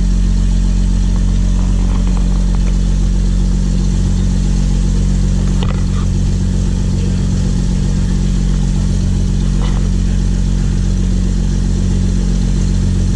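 Passenger ferry's engine running steadily under way, a loud low drone with water rushing along the hull.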